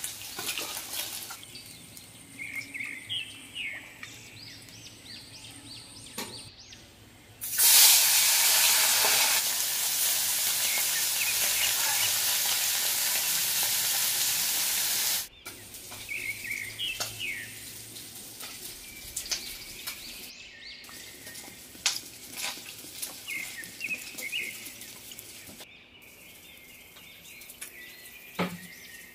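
Chela fish pieces frying in hot oil in a wok: a loud, steady sizzle starts about a quarter of the way in and cuts off suddenly about halfway, with quieter frying and spatula stirring around it. Birds chirp faintly in the background.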